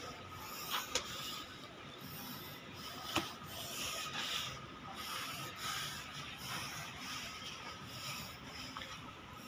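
A chenille microfiber wash mitt rubbing over wet, soapy car glass in repeated wiping strokes, with a few sharp clicks.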